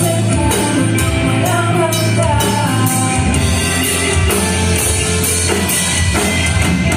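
A rock band playing live, with drum kit and a sung melody over a steady beat.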